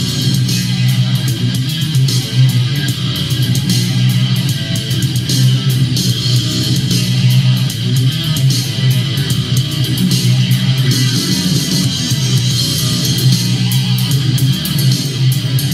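Royalty-free rock music with electric guitar and bass, played loud through a Marshall Acton Bluetooth speaker. The bass is strong, and the music cuts off suddenly at the end.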